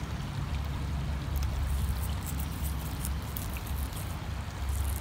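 Creek water running steadily under a low, buffeting rumble of wind on the microphone, with a few faint clicks.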